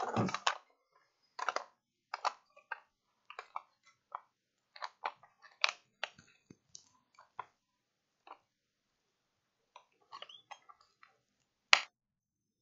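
Irregular small clicks and taps of tweezers and hand tools handling a thin jumper wire on a phone logic board, one sharper click near the end.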